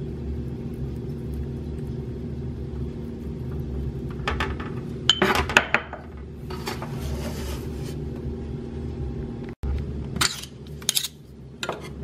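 Kitchenware clinking and knocking a few times, sharpest about five seconds in and again near the end, over a steady low hum.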